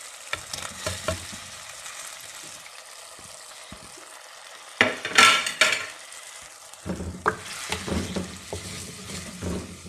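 Masala sizzling in hot oil in a clay handi as chopped tomatoes go in, with a loud flare of sizzling for about a second, some five seconds in. From about seven seconds a ladle stirs, scraping and knocking against the earthenware pot.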